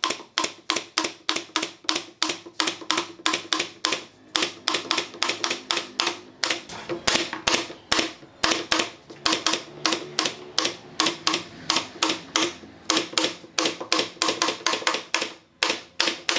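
Pneumatic brad nailer firing nails in quick succession into pine boards, a rapid series of sharp shots at about three to four a second.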